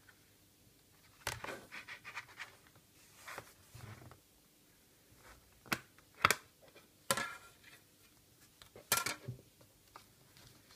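Plastic and cardboard packaging of a tempered glass screen protector handled and opened by hand: bursts of scraping and rustling with several sharp clicks, the loudest about six seconds in.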